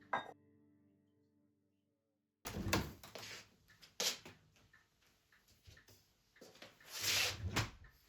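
Background music fading out, then, after a brief cut to silence, a run of small knocks, clicks and rustling, with the loudest rustle near the end.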